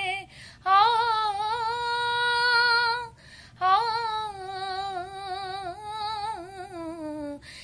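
A woman singing a Punjabi devotional song unaccompanied, in two long drawn-out phrases with a wavering pitch. The first phrase holds one note, and the second wavers and slides downward near the end.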